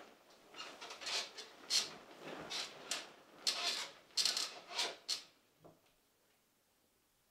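Duvet and bedding rustling in a run of short bursts as someone shifts and turns over in bed, stopping about five seconds in, followed by one small tap.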